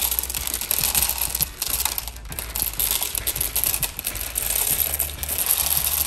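Whole roasted coffee beans poured from a bag into a coffee maker's clear plastic bean hopper: a steady, dense rattle of beans hitting the plastic and each other.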